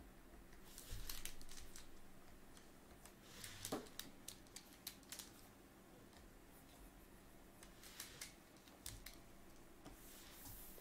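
Faint taps and short scratchy strokes of a stylus on a drawing tablet, scattered and irregular, with a soft thump about a second in and a brief falling squeak near the middle.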